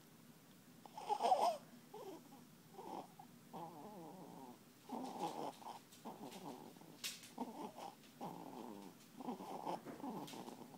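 Newborn baby snoring: a short rattling snore on each breath, about one a second, with one louder snort about a second in.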